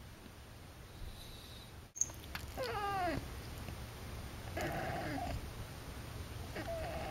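Young white cat meowing three times, short calls that bend down in pitch, the first about two and a half seconds in and the last at the very end.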